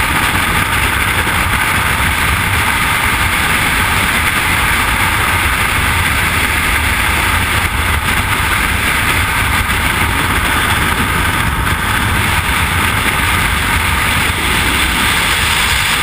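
Loud, steady rush of freefall wind buffeting a helmet-mounted camera's microphone.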